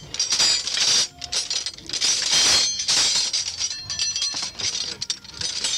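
Repeated clinking and rattling of hard objects, in uneven bursts with a bright ringing edge.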